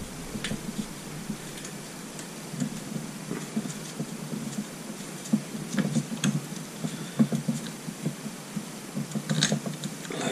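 Faint, irregular clinks and light knocks of a steel cam chain and camshaft being worked by gloved hands into a Suzuki GN250's cylinder head, with soft handling rustles between them.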